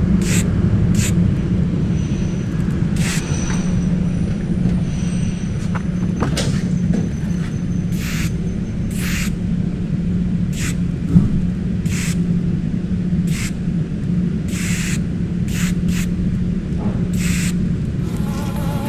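Aerosol can of Molotow spray paint hissing in a dozen or so short bursts, roughly one a second, over a steady low hum. A sharp click about eleven seconds in.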